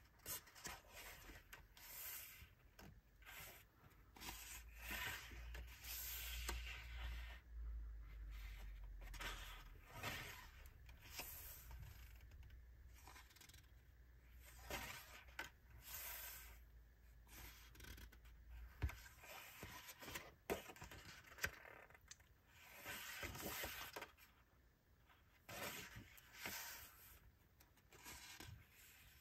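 Sketchbook pages being turned and pressed flat by hand: repeated papery swishes and rustles, with a few sharp taps in the second half.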